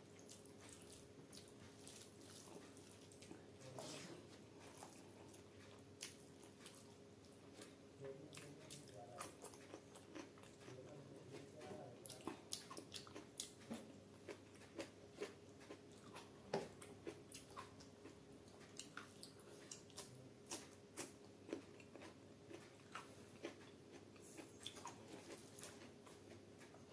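Quiet, close-up wet chewing and mouth smacks of a person eating rice and curry by hand. The sharp smacks come about one or two a second, most densely through the middle of the stretch.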